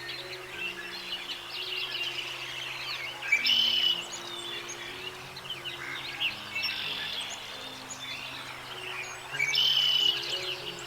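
Many small songbirds chirping and singing at once, with two louder calls, about three and a half seconds and nine and a half seconds in. Soft background music with low held notes runs underneath.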